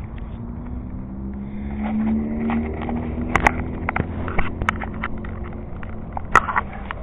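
Electric motor and propeller of a Parkzone Radian running with a steady hum that rises a little in pitch and level about two seconds in. Several sharp knocks from hands handling the plane right at the onboard camera, the loudest near the end.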